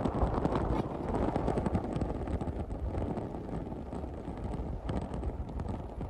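Wind gusting across the microphone: a rough, low rumbling rush with many small irregular ticks through it.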